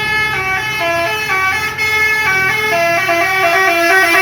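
A bus's 'telolet' multi-tone musical air horn playing a melody. Several held notes sound together and step up and down a few times a second, getting louder towards the end.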